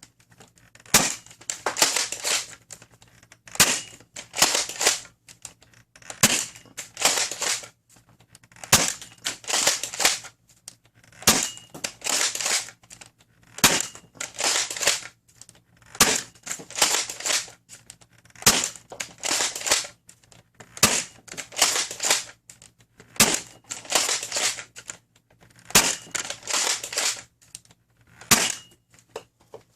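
Foam dart blaster firing half-length Worker Gen 3 darts one after another through a chronograph. There is a sharp shot about every two and a half seconds, about a dozen in all, each followed by a short burst of clattering as the blaster is worked and reloaded.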